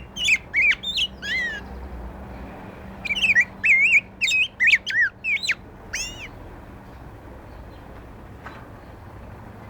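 Black-backed grosbeak (rey del bosque) singing: two phrases of quick, sliding, whistled notes, the second longer. It falls silent about six seconds in.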